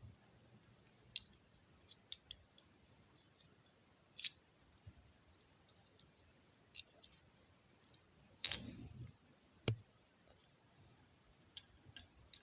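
Plastic LEGO bricks clicking and snapping as they are handled and pressed together, in separate sharp clicks a second or more apart. About two thirds of the way through there is a heavier rustle of handling, followed by a louder snap.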